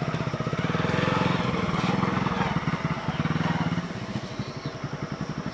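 Motorcycle engine running at low speed, its exhaust beats clearly spaced, dropping to a quieter idle about four seconds in.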